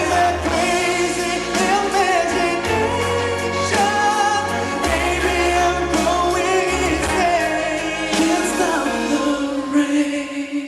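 Pop song: male voices singing long, bending held notes over band accompaniment with a steady bass line. The music thins out near the end.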